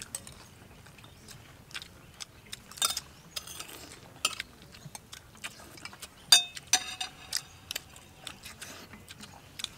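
Metal spoons clinking and tapping against plates during a meal: scattered short clicks, with a louder ringing clink about six seconds in.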